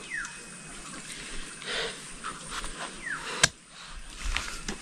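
A single sharp crack or knock about three and a half seconds in, over a faint noisy background with two short falling chirps.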